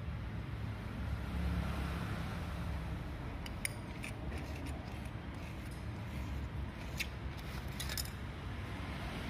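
Light metallic clicks and clinks of tools and small metal parts, three sharper ones, over a steady low hum.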